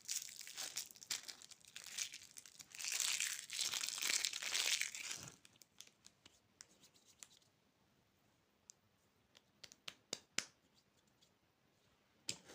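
Plastic candy packaging crinkling and tearing open for about five seconds, then a few scattered small clicks and taps.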